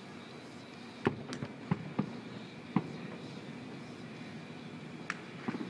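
Aerial fireworks shells bursting at a distance: about five sharp booms between one and three seconds in, then two more near the end, over a steady hum of city background.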